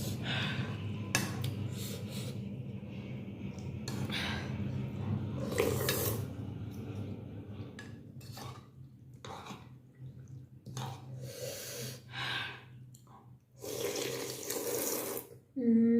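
Eating vegetable thukpa: a series of wet slurps and sips of noodles and hot broth, irregular and of varying length, the longest one near the end.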